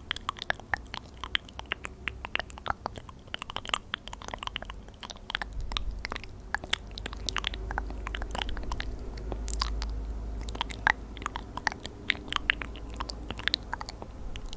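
Dense, irregular crackling clicks close to the microphone, with a low rumble from about five to eleven seconds in.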